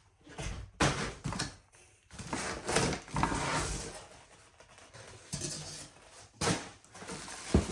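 Packaging and parts being handled: irregular rustling with a few sharp knocks.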